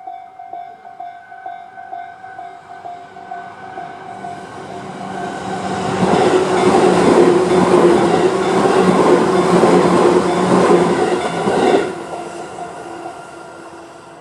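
Tobu 10000-series electric train passing over a level crossing. Its wheel and motor noise builds to a loud rush about six seconds in and cuts off suddenly near the end as the last car clears. The crossing's electronic warning bell rings in quick repeated strokes, about three a second, at the start and is drowned out as the train arrives.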